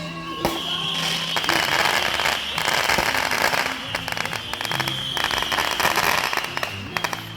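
Fireworks crackling densely, many sharp pops in rapid succession from about a second in until near the end, with a long high whistle sounding over them. Faint music underneath.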